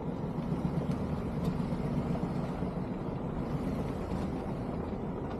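Jeep driving, heard as a steady low rumble of engine and road noise.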